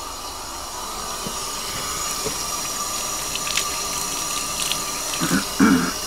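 Bathtub tap running steadily, water pouring into the tub, with a few faint clicks and a couple of louder short thumps near the end.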